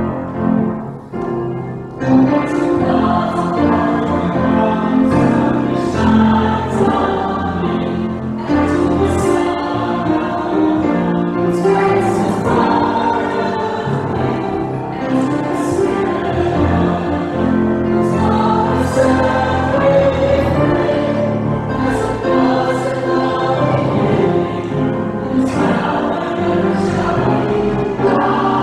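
A small mixed church choir singing, coming in strongly about two seconds in after a brief dip.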